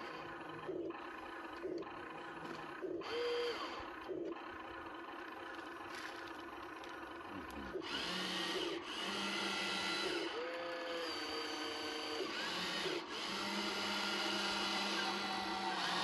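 Small electric motors whirring. Their whine starts and stops about once a second and glides up and down in pitch, then from about eight seconds in it runs longer and louder.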